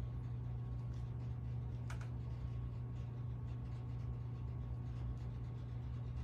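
56-inch Airmaster Mark I industrial ceiling fan coasting down toward a stop, spinning on long after power-off on good bearings. A steady low hum with a faint higher steady tone, and one light click about two seconds in.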